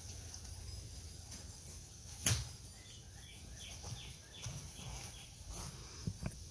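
Quiet outdoor ambience over a steady low rumble: one sharp knock a little over two seconds in, then a quick run of about six short, high chirps from a bird.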